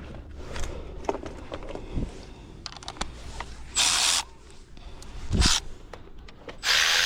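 Small clicks and handling noises from unplugging the ignition coil connector in an engine bay. There is a short loud hiss about four seconds in, a dull thump, and a steady loud hiss that starts near the end.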